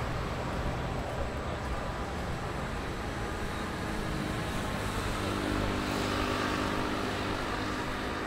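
Street traffic: cars driving past with a steady mix of engine and tyre noise. A vehicle's engine hum comes forward from about five seconds in.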